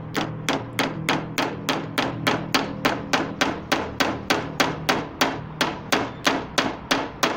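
Claw hammer striking a nail held through a plastic bottle cap on a corrugated PVC sheet, in quick, even light blows about three a second.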